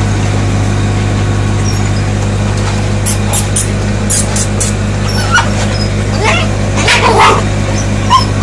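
Puppies giving short whines and yips, loudest about seven seconds in, over a steady low hum, with a few sharp clicks a little before the middle.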